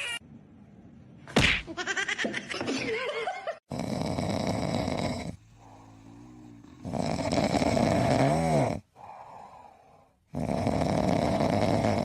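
Snoring: three long, loud snores about three seconds apart in the second half, after a sharp click.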